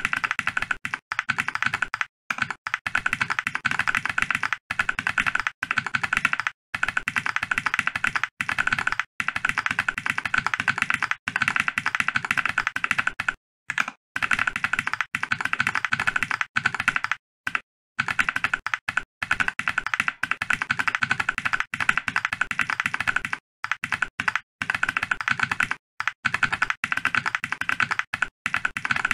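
Mechanical keyboard with ZealPC Tealios V2 linear switches being typed on quickly and steadily, a dense run of key clacks with only brief pauses.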